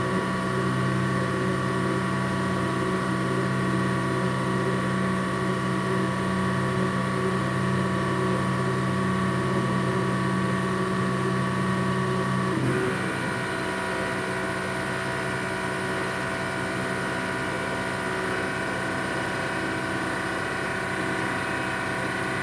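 Small CNC machine running with a steady mechanical hum and whine made of several held pitches. About thirteen seconds in, the low hum drops away, it gets a little quieter, and a higher whine takes over as the machine changes what it is doing.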